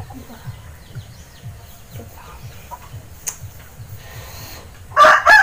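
Chickens clucking, with one short, loud squawk about five seconds in.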